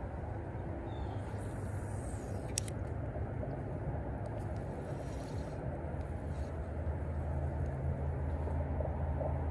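Steady low engine hum from a motor running somewhere off, growing a little louder near the end, with one sharp click about two and a half seconds in.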